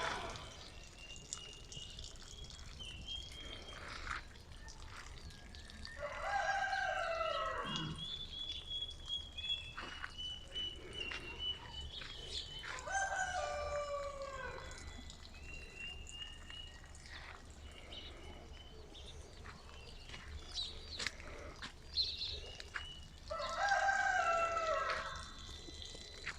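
A rooster crowing three times, each crow about a second and a half long and dropping in pitch at the end, with smaller birds chirping between the crows.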